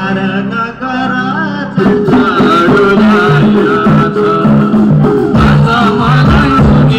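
Live Nepali lok dohori folk music played over stage loudspeakers: a sung melody over a held low tone, with the band coming in louder and fuller, in a steady rhythm, about two seconds in.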